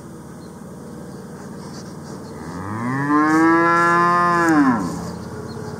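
Holstein cow mooing: one long call of about two and a half seconds that rises in pitch, holds, and drops away at the end.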